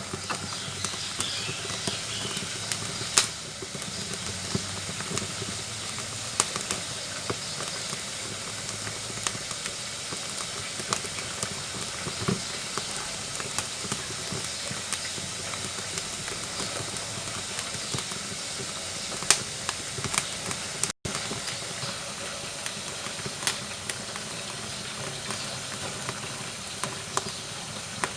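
Wood fire crackling in the firebox of a wood-burning cookstove: a steady hiss with irregular sharp pops and snaps.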